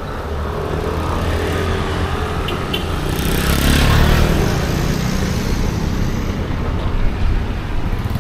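Street traffic with engines running. A songthaew pickup taxi passes close by, swelling to its loudest about four seconds in, then fading.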